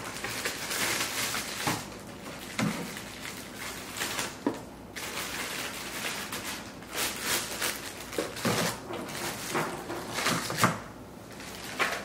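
Plastic bags and bundled wiring harnesses crinkling and rustling as they are handled and packed into a cardboard box, with a few light knocks.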